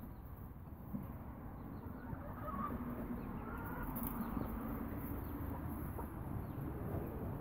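Hens clucking softly in low, drawn-out murmurs, with a few short higher calls about three seconds in, over the low rumble and rustle of a hand-held phone moving through hay.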